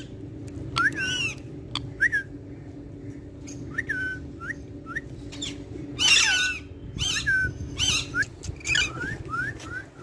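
Alexandrine parakeet giving a string of short whistled calls and chirps, many with a quick rise or fall in pitch; the loudest, harsher call comes about six seconds in.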